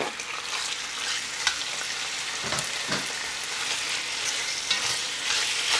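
Chopped raw chicken sizzling in hot olive oil in an enamelled cast-iron Dutch oven, with a slotted spoon stirring and knocking against the pot every second or so.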